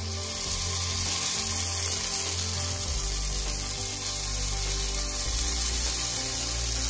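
Jowar batter sizzling as spoonfuls drop into hot oil in the cups of a ponganalu (paniyaram) pan, over background music.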